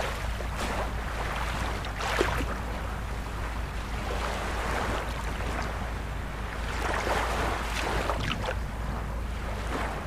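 Ocean surf: waves breaking and washing in over a steady low rumble, the wash swelling about two seconds in and again around seven to eight seconds.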